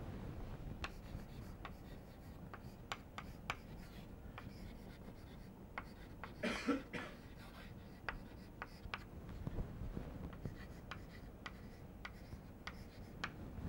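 Chalk tapping and scratching on a chalkboard as words are written, a run of faint irregular clicks. A short vocal sound, like a cough or throat clearing, comes about six and a half seconds in.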